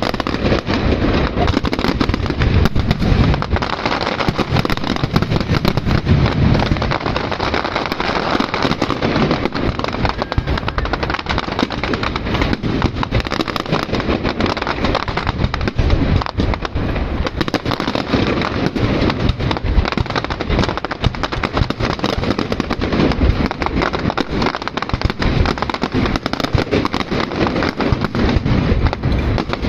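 Castillo fireworks by Pirotecnia Zarzoso going off without a break: a dense, fast stream of bangs and crackles.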